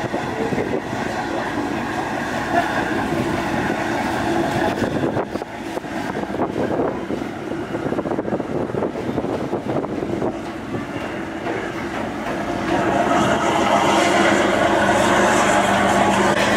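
Fast ferry's engines running with a steady rumble and rushing wind and water noise, growing louder and hissier about twelve seconds in.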